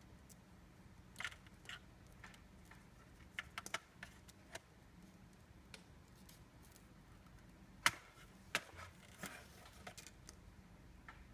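Scattered light clicks and taps of small hard parts being handled, with a loose cluster a few seconds in and one sharper click about eight seconds in, over a faint steady hum.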